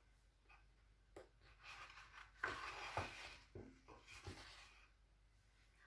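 Faint rustling and a few soft taps from a paper page of a hardback picture book being handled and turned, with hand movements close by.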